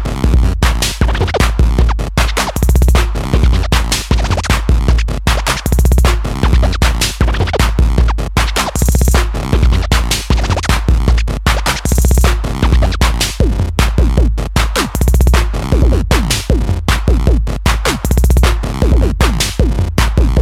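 Electronic music with a driving drum-machine beat, heavy bass and record-scratch effects.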